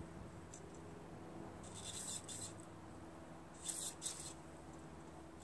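Aerosol carb cleaner sprayed through its thin straw into the small passages of a Tecumseh carburetor jet nut, blowing them clear: one short hiss about two seconds in, then two quick hisses close together near the four-second mark.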